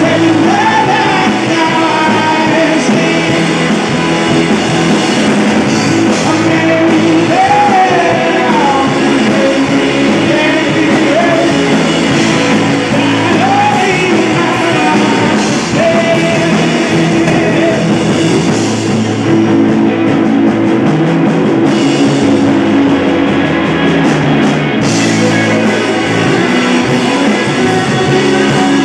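Rock band playing live with a singer's voice carrying the melody over the band.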